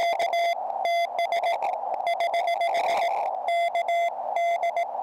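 Morse code (CW) on a QRP Labs QCX Mini transceiver: a steady beep near 700 Hz keyed in dots and dashes, over a narrow band of receiver hiss.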